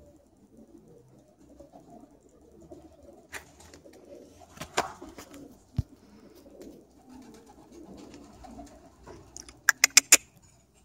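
Domestic pigeons cooing softly. There are a couple of single sharp knocks midway and, near the end, a quick loud run of about five sharp claps.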